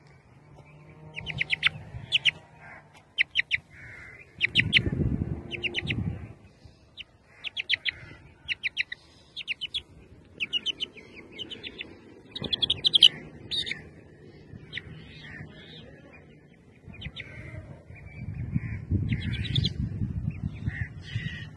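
Chicken chick peeping, high short peeps in quick runs of two to four, on and off throughout. Louder rustling and bumping from handling about five seconds in and again near the end.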